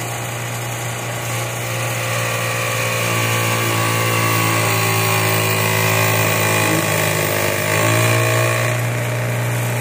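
Bench grinder running with a steady motor hum while its wire wheel scrubs rust off a motorcycle exhaust pipe pressed against it, a scraping hiss over the hum. About eight seconds in the motor's pitch sags briefly under the load, then recovers.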